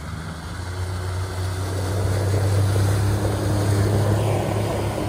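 Honda 40 hp four-stroke outboard motor driving a small open boat at speed, a steady engine hum with water rushing off the hull and wake. It grows louder over the first two seconds as the boat comes past and eases off near the end, its pitch dropping about four seconds in.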